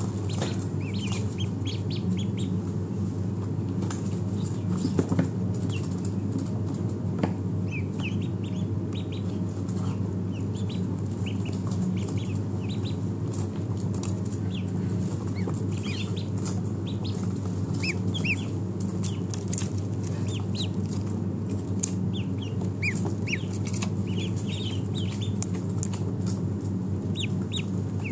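Ducklings peeping: many short, high chirps scattered throughout, over a steady low hum.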